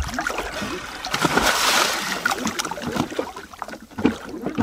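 Sea water splashing and sloshing around the stern of a moving sailboat and a snorkeler swimming alongside it, with a louder rush of water between about one and two seconds in.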